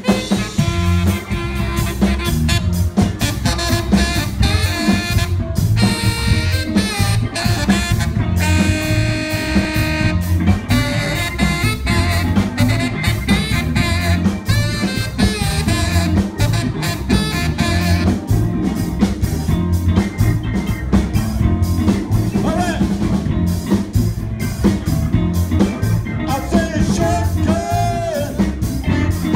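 Live band playing an upbeat tune with a steady beat: saxophones and trumpet over electric bass.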